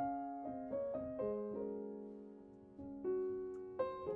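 Background piano music: single notes and chords that start cleanly and ring away, with one chord left to fade in the middle before the notes pick up again.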